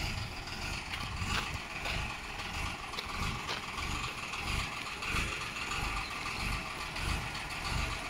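An engine idling steadily: a low rumble under an even hiss.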